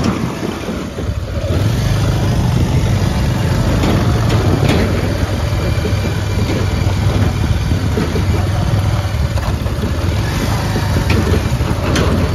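Motorcycle engine running steadily at low speed over a badly broken, rutted road, with rattling and a few sharp knocks from the rough surface.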